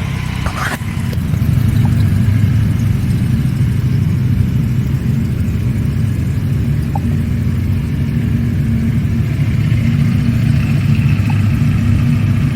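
Motorcycle engine idling steadily, a little louder from about a second in.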